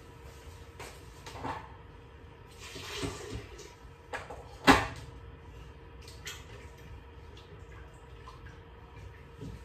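Kitchen sounds over a low steady background: a few knocks and clatters, the loudest about halfway through, and a brief rush of noise around three seconds in.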